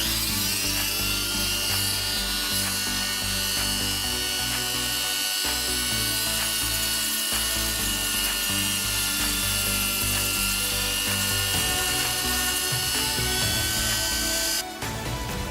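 Small electric motor, such as a hand-held power tool working on the plastic syringe, spinning up at the start and then running steadily at a high whine. It cuts off suddenly near the end. Background music plays throughout.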